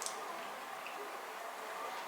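Food sizzling steadily in a frying pan, with a light click near the start.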